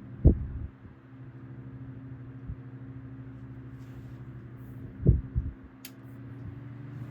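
1954 Robbins & Myers C-12 oscillating table fan running with a steady motor hum. Two brief low thumps come about a third of a second in and again about five seconds in.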